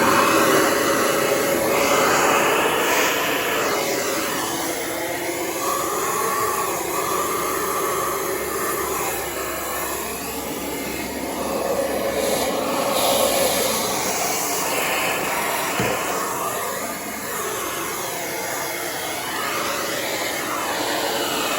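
Von VAVC-16DMR bagless vacuum cleaner running: a steady, loud whooshing motor noise whose pitch wavers now and then.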